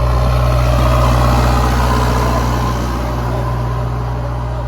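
Heavy diesel engine running steadily and loudly, with a deep, even drone.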